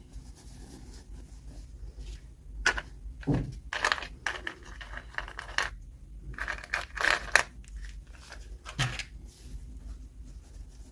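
Toy packaging being torn open and crinkled by hand, in several short rustling bursts.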